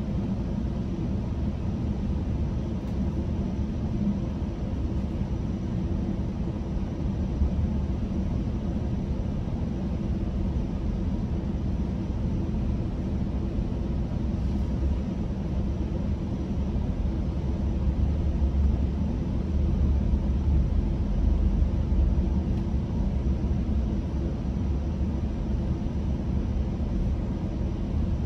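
Steady rumble of a GO Transit commuter train in motion between stations, heard from inside the passenger coach: wheels and running gear on the track, growing a little louder about two-thirds of the way through.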